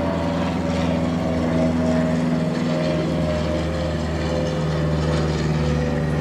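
Small propeller airplane flying very close overhead, its engine and propeller making a loud, steady drone.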